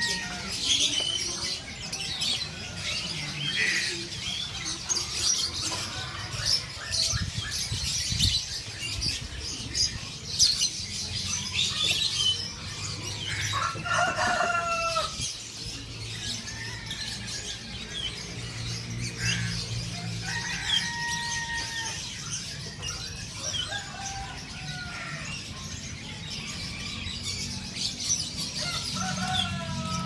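Many caged birds chirping and twittering at once, a dense mix of short high calls, with a few longer, lower calls that fall in pitch, the clearest about halfway through and another near the end, over a low steady hum.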